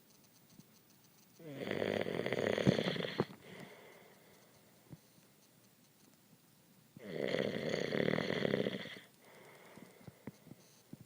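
Loud snoring: two long snores of about two seconds each, some five seconds apart.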